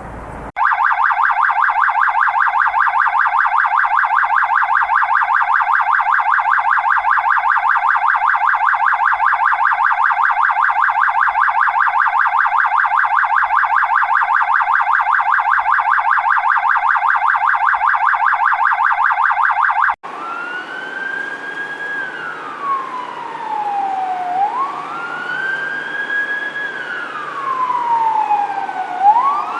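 Police siren sound effects, one after another. First a very rapid electronic siren pulsing many times a second at a steady pitch and level. About twenty seconds in it cuts abruptly to a police siren wailing, slowly rising and falling over a low rumble.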